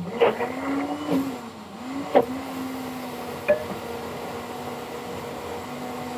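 Electric blender motor running steadily at one pitch, dipping briefly a couple of times as it takes load. Four sharp knocks or clinks come over it in the first few seconds.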